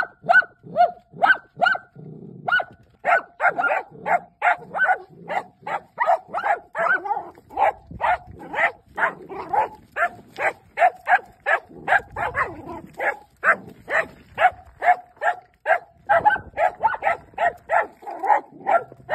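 Dachshunds barking rapidly and without let-up, about two to three sharp barks a second, as they bay at a groundhog cornered in a culvert pipe.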